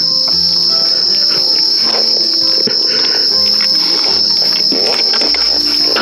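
Insects trilling in one continuous high-pitched drone, with soft background music of held notes underneath.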